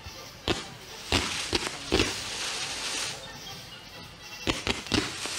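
Fireworks bursting in a string of sharp bangs, about four in the first two seconds and another quick cluster of four near the end, with music playing underneath.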